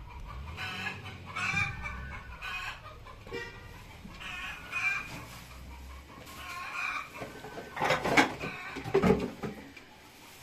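Chickens clucking in short repeated calls, with a couple of louder knocks near the end.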